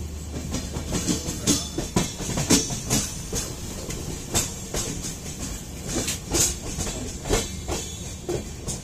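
Indian Railways passenger train running, heard from an open coach doorway: a steady low rumble with many irregular sharp clanks and clicks of the wheels over the rail joints.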